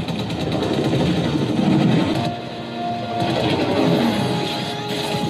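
Action-series soundtrack: dramatic score mixed with a dense layer of sound effects. It eases off a little past two seconds in to a few held notes, then builds again.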